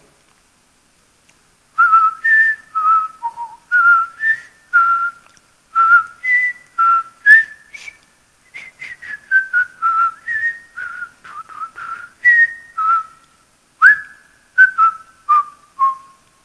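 A man whistling a tune by mouth: a string of short clear notes stepping up and down in pitch, starting about two seconds in.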